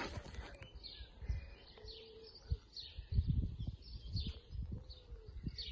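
Birds chirping and calling repeatedly, with irregular low thumps and rumble from the handheld phone being carried.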